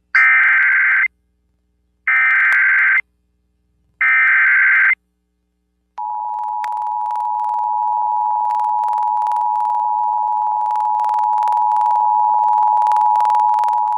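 Emergency Alert System alert received over FM radio: three one-second bursts of SAME digital header data, a second apart, then the EAS two-tone attention signal held steady for about eight seconds. It opens a severe thunderstorm warning.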